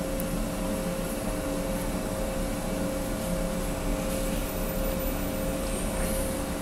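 Steady mechanical hum and fan whir from running equipment: a few fixed humming pitches under an even rushing noise, unchanging throughout.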